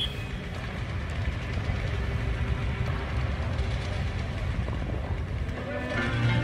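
Steady low outdoor rumble, with background music fading in near the end.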